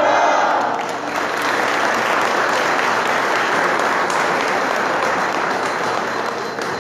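A crowd finishes a shouted chant and, about a second in, breaks into steady applause.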